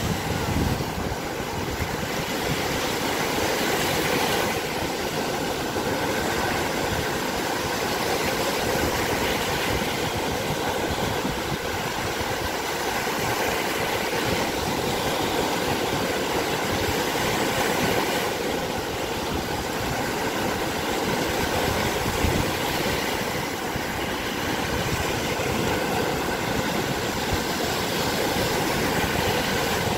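Small lake waves breaking and washing up a sandy shore in a steady, unbroken rush of surf.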